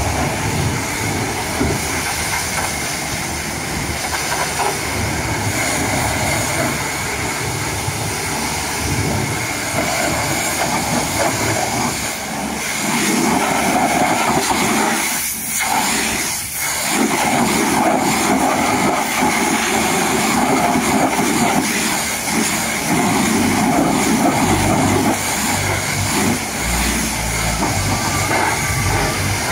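High-pressure washer lance spraying water onto a truck's wheel and chassis: a loud, steady hiss of spray, cut off twice briefly about halfway through.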